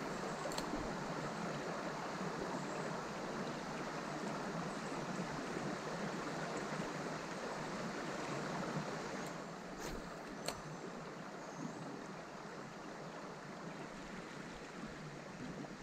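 Creek water running steadily over rocks in a shallow riffle, with a few sharp clicks, two of them about ten seconds in.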